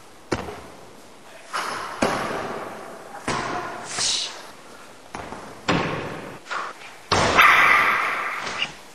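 Skateboard wheels and deck knocking on wooden ramps: a run of hard thuds and clacks, roughly one a second, each with an echoing tail. The loudest comes about seven seconds in.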